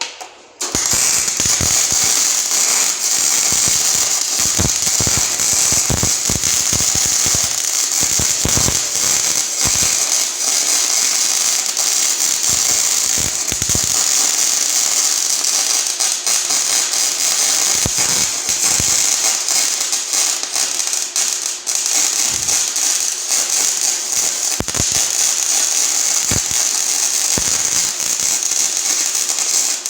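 Snap-On MIG FM140A welder arc burning: a steady, dense crackle and sizzle of MIG welding, starting about half a second in and running without a break.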